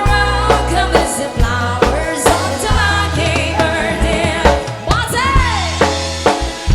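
A band playing a song, with a regular drum beat and bass under a sung or played melody line.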